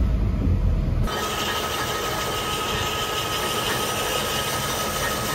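A metal lathe running with a hacksaw blade held against the spinning workpiece to cut it: a steady hissing scrape with a thin whine. For about the first second, before it starts abruptly, low road rumble inside a moving car.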